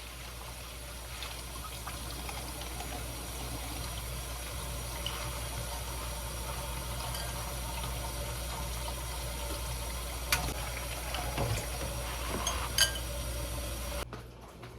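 Kitchen tap running steadily as spinach is rinsed under it, with a few light knocks of handling; the water shuts off near the end.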